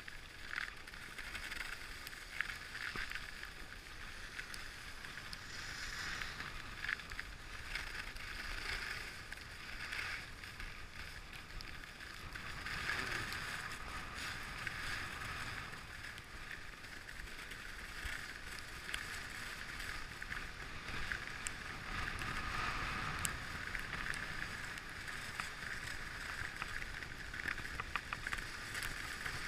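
Skis sliding and carving over firm groomed snow on a fast descent: a continuous scraping hiss with small scratchy clicks, and wind rumbling on the camera microphone.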